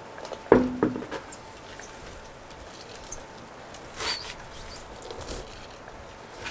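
Clanks and small knocks of wheel and tool work: a sharp clank about half a second in with a short ring, a second knock just after, then scattered light clicks and a brief scrape about four seconds in.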